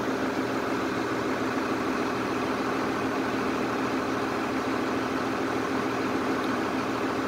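Turbocharged diesel engine running steadily at a constant speed, an even hum with no change in pitch or level.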